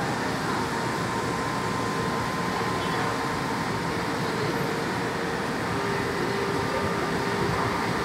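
São Paulo Metro Line 1 train standing at the platform, its on-board equipment running with a steady hum and hiss and a few faint held tones.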